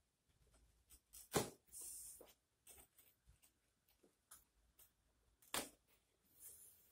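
Scissors cutting the packing tape on a cardboard box: faint scattered snips and scrapes, with two sharper clicks, about a second and a half in and again past the middle.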